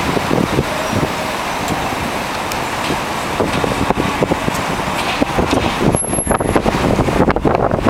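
City street traffic: cars and taxis passing, with a continuous loud wash of traffic noise and scattered short knocks, busier near the end.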